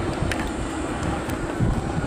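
Low, steady rumble of aerial fireworks booms echoing away between bursts, with wind buffeting the microphone and a few faint crackles.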